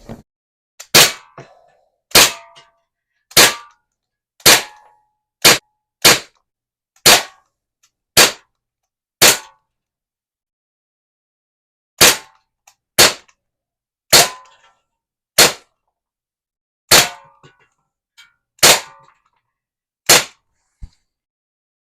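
Daisy Powerline 415 CO2 BB pistol being fired semi-automatically: sixteen sharp pops at roughly one a second, with a pause of a couple of seconds after the ninth, and a faint click near the end.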